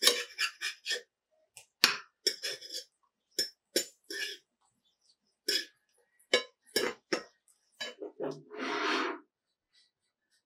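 Dishes and utensils being handled: an irregular run of sharp clinks and knocks, with a brief rushing swish near the end.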